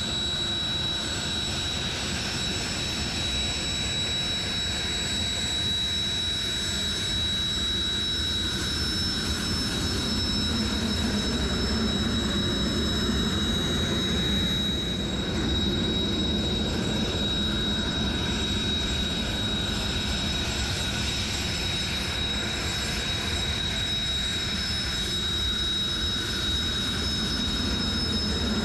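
Jet trainer's turbofan engines running steadily: a constant high whine over a low rumble, swelling slightly about midway.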